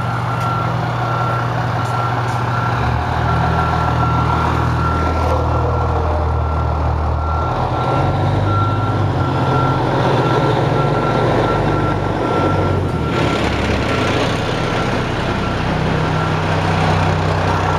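Fire truck's diesel engine running steadily. Over it is a steady high-pitched tone that stops about 13 seconds in.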